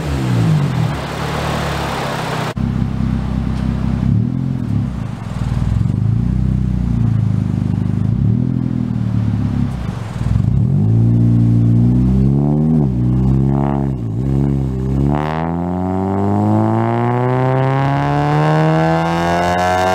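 2012 Honda Civic Si's K24Z7 2.4-litre four-cylinder heard through its Invidia cat-back exhaust: revs falling away at first, then idling with about three quick throttle blips, then a long, steady climb in revs over the last few seconds.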